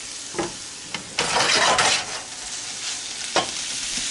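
Drained, browned ground beef sizzling in a hot stainless steel pan as it is tipped back in from a colander, with a louder burst of sizzling about a second in that settles to a steady sizzle. A few sharp knocks against the pan.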